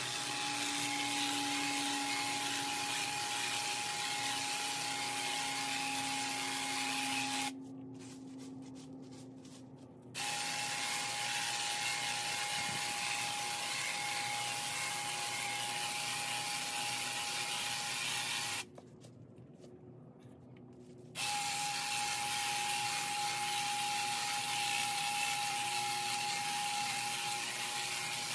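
Electric hedge trimmer running with a steady whine in three stretches of several seconds, switched off twice for a couple of seconds in between.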